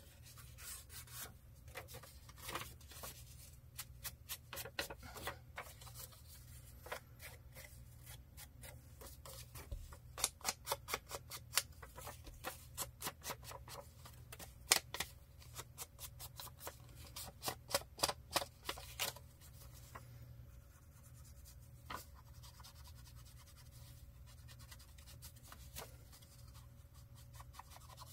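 Ink blending tool rubbed across paper in quick repeated strokes, about three or four a second, to distress and age the paper edges with ink. The strokes thin out to a few scattered ones in the last third.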